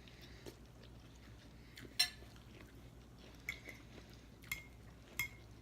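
Cutlery clinking against plates and bowls while eating: one sharp clink with a short ring about two seconds in, then three lighter clinks in the second half.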